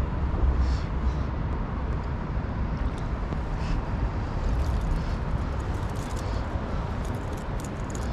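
Hooked tailor being reeled in to the kayak: light splashes and clicks, thicker in the second half, over a steady low rumble.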